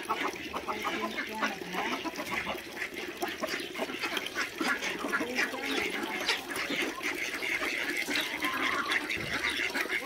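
A flock of farmyard poultry calling continuously, with many short calls overlapping one another.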